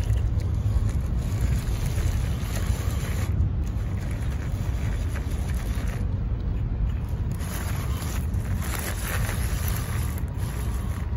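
WPL C34 RC crawler inching over loose rocks, its tyres crunching and clicking on the gravel, over a steady low rumble of wind and traffic.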